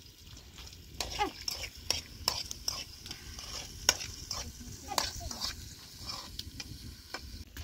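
Food frying in a pan with a steady sizzle, while a utensil stirs it and taps and scrapes against the pan many times.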